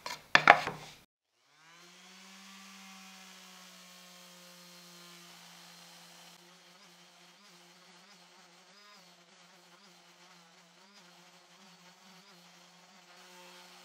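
Makita random orbital sander with a 120-grit disc sanding pine boards: a steady motor hum that comes up to speed about two seconds in, then wavers slightly in pitch as the pad is worked over the wood.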